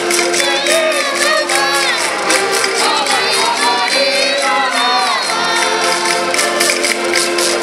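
Several women singing together in Minho folk style over concertinas holding steady chords, with the sung melody rising and falling through the middle.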